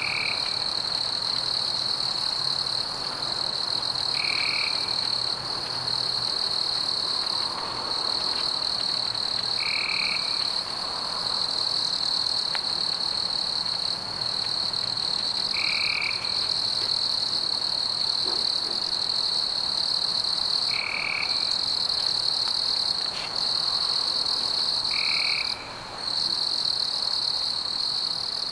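Background chorus of insects and frogs calling: a steady high-pitched trill broken by brief gaps, with a short call repeating about every five seconds.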